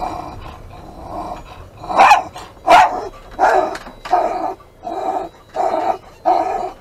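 A dog barking repeatedly: after a couple of fainter calls, a steady run of about seven sharp barks starts about two seconds in, the first two the loudest.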